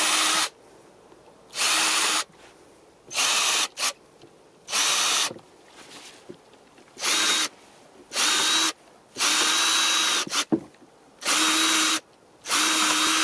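Power drill running in about nine short bursts of under a second each, stopping and starting, as holes in old pallet wood are drilled out wider and deeper to take screws.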